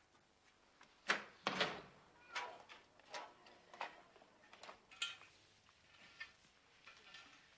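A door shut hard about a second in, heard as two loud knocks close together. It is followed by a string of short scraping strokes at an uneven pace, brooms sweeping a paved street.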